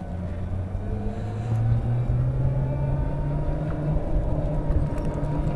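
APtrikes125 mini jeep driving, its motor note rising about a second in as it speeds up, then holding steady over road noise.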